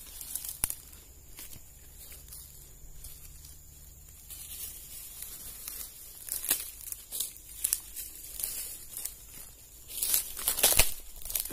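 Dry oil palm fronds rustling and crackling as they are pushed aside by hand and trodden on, with footsteps; the crackles come irregularly and are loudest near the end.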